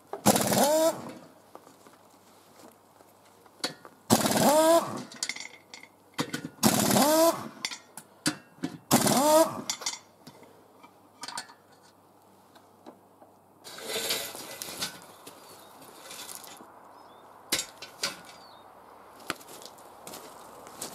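A tool or machine run in four short bursts of about a second each, a hissing whirr with a bending tone, with scattered clicks and knocks between and a weaker burst a few seconds after the last.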